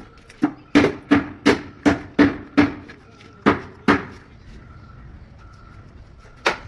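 Hammer blows on shuttering formwork: a quick run of seven strikes, a little under three a second, then two more after a short pause, each with a brief ring.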